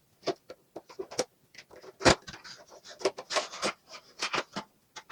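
Toy packaging being opened by hand: an irregular string of short clicks, crinkles and rustles of cardboard and plastic, with one louder knock about two seconds in.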